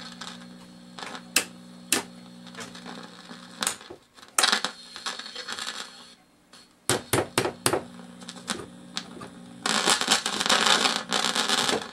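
A small AA5 AC/DC tube radio's speaker giving a steady low hum that cuts out and returns, with sharp pops and crackles. Near the end comes a loud burst of static crackle. The hum is one that later goes quiet again, and the crackling fits a dirty volume control that needs cleaning.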